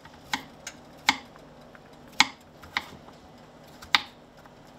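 Kitchen knife dicing cucumber on a cutting board: about six separate sharp knocks at irregular intervals as the blade strikes the board.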